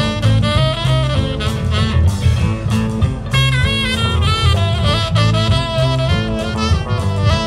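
Live blues band playing an instrumental: a saxophone carries the melody over electric guitars, a walking bass line and a drum kit.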